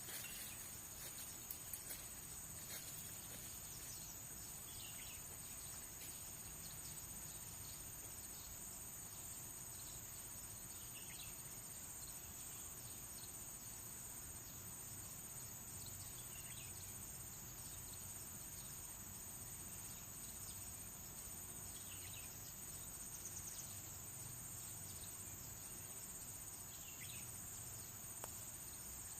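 Steady chorus of insects trilling continuously, with a short faint call repeating about every five seconds.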